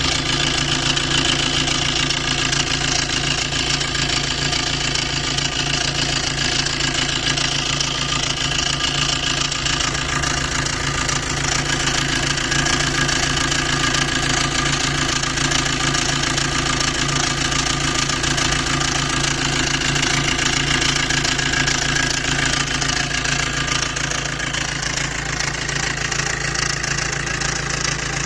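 Maruti Suzuki Dzire engine idling steadily with a loud, fast, even clatter from a worn timing chain set, the sign that the chain set is due for replacement.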